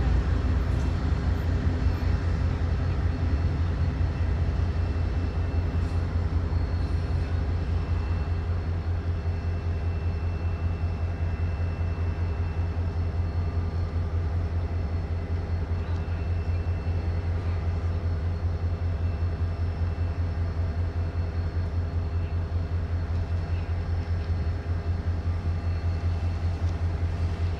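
Diesel engine of Norfolk Southern locomotive NS 9833 running with a steady low drone as the locomotive moves away, slowly fading.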